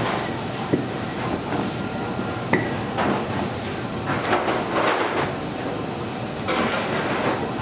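Scattered sharp knocks and clinks, about half a dozen, from dough being rolled and handled in a wooden dough frame with angle-iron rails on a wooden bench, over a steady background rumble.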